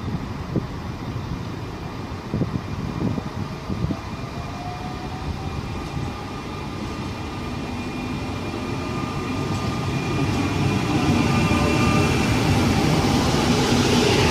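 Belgian electric multiple-unit passenger train approaching along the platform and running past close by. A low rumble grows steadily louder, and high whining tones rise in over the last few seconds.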